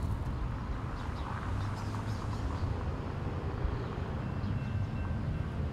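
Diesel locomotive's engine rumbling low as it creeps forward pulling covered hopper cars, with birds chirping in the first half and a faint high steady tone coming in about four seconds in.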